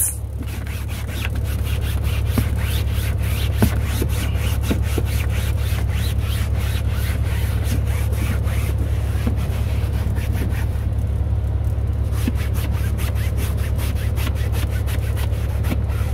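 Microfiber cloth scrubbed back and forth on a semi truck's cab headliner close to the microphone, about four or five rubbing strokes a second, with a short pause past the middle. The cloth is wiping off sprayed-on heavy-duty cleaner to lift a stain.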